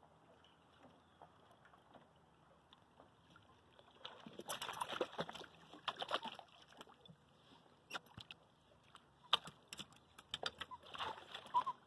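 A small hooked fish splashing and thrashing at the water's surface beside the boat, a burst of sloshing with sharp knocks lasting a few seconds, then a few scattered clicks. Near the end a dog starts whining in short high notes.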